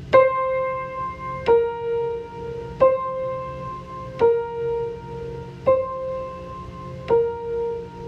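Slow keyboard music: single struck notes, six in all about one every second and a half, alternating between two neighbouring pitches, each ringing on until the next, over a faint low steady hum.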